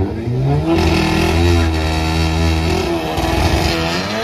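Drag cars' engines revving hard and held at high revs on the start line, the pitch wavering, then dipping and climbing again near the end.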